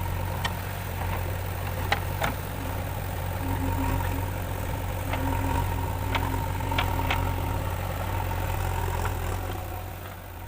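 JCB 3DX backhoe loader's diesel engine running steadily, with several sharp clanks scattered through it and a faint steady whine in the middle. The sound dies down near the end.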